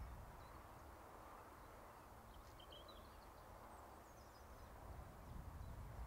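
Near silence: faint outdoor ambience from a rural meadow, with a few faint, short bird chirps about halfway through.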